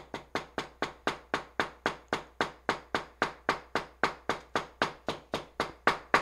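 A claw hammer tapping lightly and steadily on a paper towel laid over a fern on paper, about four blows a second, growing a little louder near the end. The blows hammer the fern's pigment out into the paper (pounded-leaf eco printing).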